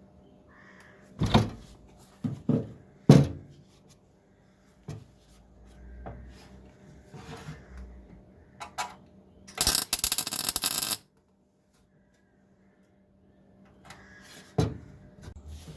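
Workshop metalwork: a handful of sharp knocks and clatters from tools and steel panels being handled, and a harsh burst of noise lasting a little over a second about ten seconds in, with a last knock near the end.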